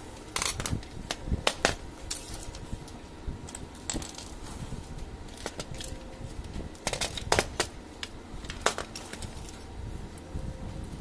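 Scattered sharp clicks and clacks of an HP LaserJet 4515/M4555 fuser assembly's plastic frame and small metal parts being handled and knocked against a tile floor during disassembly, coming in small clusters.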